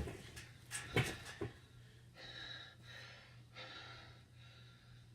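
A few sharp knocks in the first second and a half, then faint breathing in short puffs.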